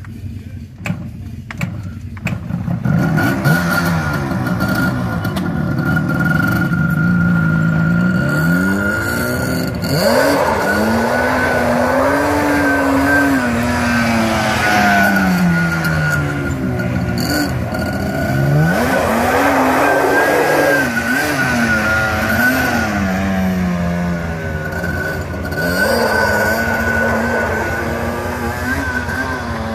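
Yamaha Banshee quad's twin-cylinder two-stroke engine revving up and down while it is ridden, the pitch rising and falling over and over. It is quieter for the first two seconds, then loud.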